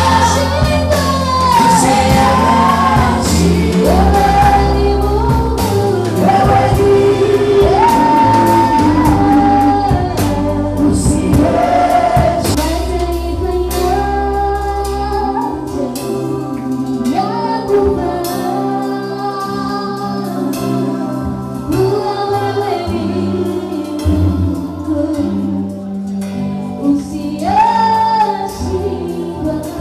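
A women's gospel worship group singing into microphones over instrumental backing, several voices carrying the melody. The deep bass drops out about halfway through, leaving lighter accompaniment under the voices.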